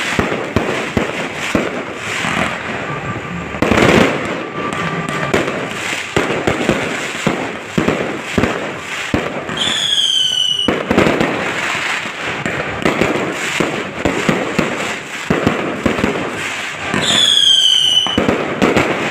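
A dense barrage of fireworks and firecrackers going off in rapid succession. It is broken twice, near the middle and near the end, by a high whistle that falls slightly in pitch.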